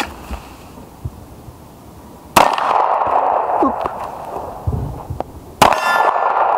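Two 9mm pistol shots from a Sig Sauer M11A1, about three seconds apart. Each is followed by a steel target ringing from the hit.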